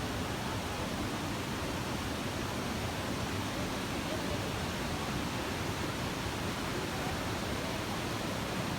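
Rushing water: a steady, even hiss with no change in level.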